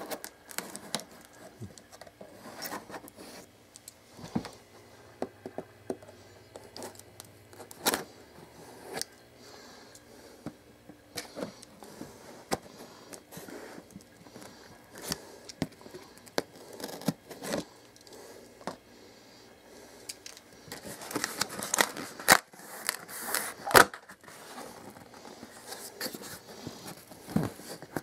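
A cardboard box being cut and opened: a utility knife blade slicing through packing tape and cardboard, with scattered scrapes, clicks and handling of the box flaps. A louder, denser stretch of scraping and rustling of packing material comes about three-quarters of the way through.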